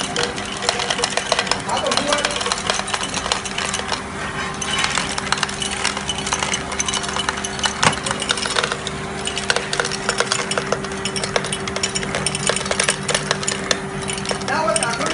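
Pharmech TC 700 tablet counting and filling machine running. Its motor and feeders make a steady hum, over a dense, continuous rattle and clinking of tablets feeding through the machine.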